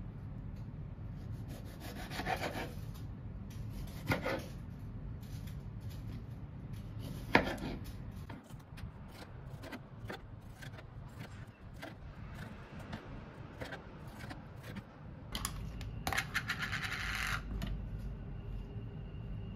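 Kitchen handling sounds: a few short rubs and scrapes, a sharp knock about seven seconds in, and a longer scrape near the end, over a low steady hum.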